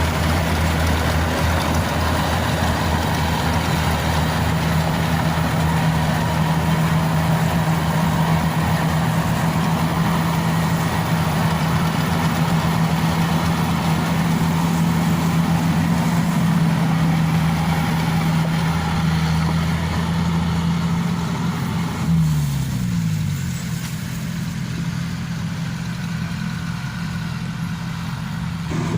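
Diesel engine of a Yanmar AW70V combine harvester running steadily at working speed. About three-quarters of the way through its pitch drops and it runs quieter for several seconds, then picks up again near the end.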